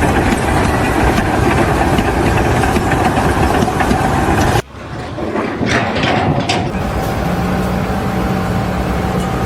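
Loud, steady engine noise of running machinery. It cuts off abruptly about halfway through and gives way to a quieter engine hum with a few brief scraping sounds.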